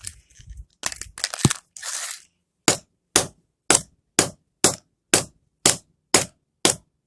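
An old flip phone being smashed: a few crunching, scraping sounds, then a steady run of sharp blows about two a second.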